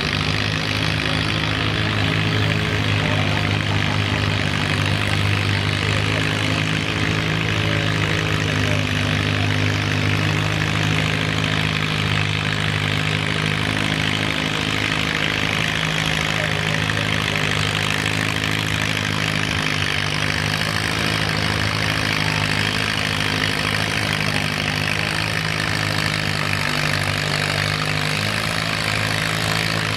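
Small vintage farm tractor engine running steadily under load as it pulls a weight-transfer sled at slow, even speed. The engine note holds nearly constant throughout.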